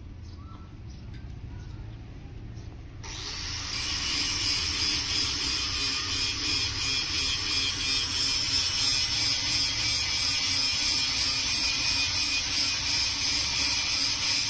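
A power tool running steadily, cutting in abruptly about three seconds in.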